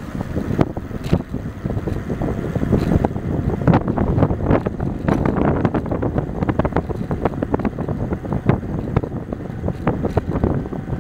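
Wind buffeting the microphone on an electric bike ridden at full throttle, close to 30 mph. It is a loud, uneven rush of air that keeps up throughout.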